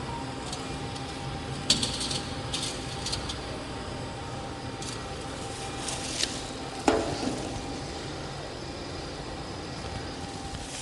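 Steady machine hum in a sheet-metal workshop, with a few light metallic clicks and a knock about seven seconds in, as a steel sheet is positioned on a CNC panel bender.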